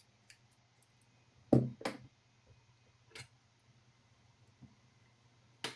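A few sharp clicks and knocks from tools being handled on a workbench: two close together about a second and a half in, then fainter ticks, over a faint steady low hum.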